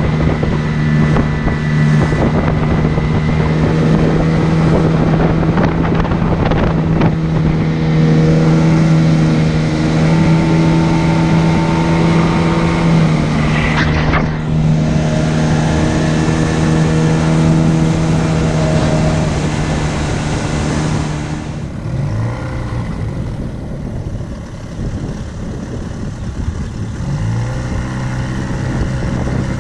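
Small boat's outboard motor running at a steady speed, with wind rushing over the microphone. About three-quarters of the way through the engine note drops as the throttle eases back, then climbs again near the end.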